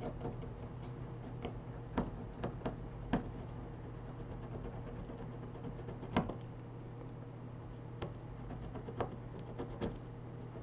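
Irregular small clicks and taps of hand tools working on a smartphone, the sharpest about six seconds in, over a steady low electrical hum.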